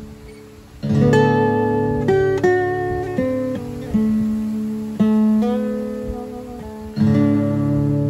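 Background music on acoustic guitar: a strummed chord about a second in, then a run of single picked notes, and another strummed chord near the end.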